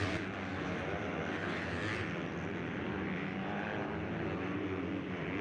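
250-class motocross bike engines running on the track, their pitch rising and falling as the riders work the throttle through the turns.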